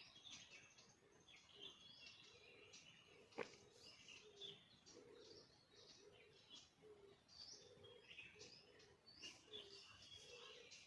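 Faint bird calls: many high chirps and twitters of small birds, over a run of short, low calls repeated at irregular intervals. A single sharp click comes a little over three seconds in.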